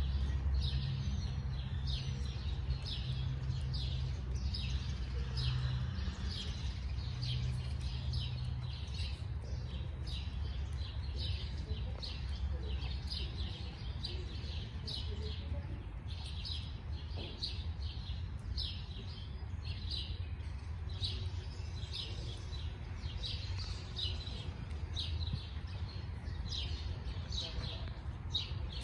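Small birds chirping, repeated short high chirps about twice a second, over a steady low rumble.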